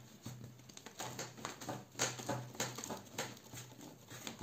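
Hands kneading a ball of homemade sugar paste (fondant) on a cornstarch-dusted tabletop: soft, irregular pats and thuds, a few a second, as the paste is pressed and folded.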